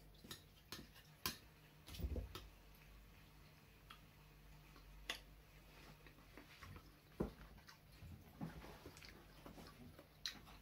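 Faint, irregular light clicks of a metal spoon against a bowl while eating, with a soft low knock about two seconds in.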